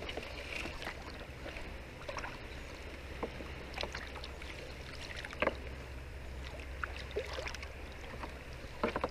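Shallow water sloshing with scattered small splashes and rustles as a set net full of fish is hauled by hand into a floating plastic tub, over a steady low rumble. The sharpest splashes come about five and a half seconds in and again near the end.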